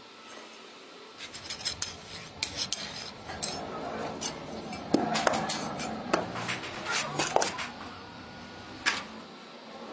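Metal clinks, knocks and scraping as a steel sand-casting moulding flask and its lid are set down, shifted and rubbed on a sand-covered floor. The sharpest knocks come about five seconds in and again near the end.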